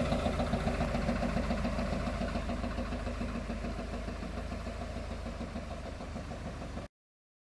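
Farmtrac 6050 tractor's diesel engine running with a fast, even pulse, fading steadily as the tractor moves away, then cutting off suddenly near the end.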